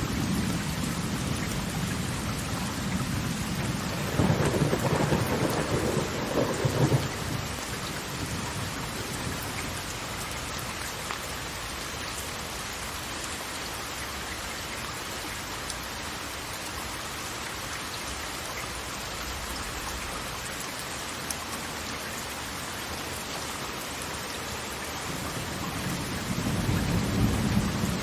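Steady rain with rolling thunder: a low rumble fading over the first couple of seconds, a louder roll about four to seven seconds in, and another building near the end.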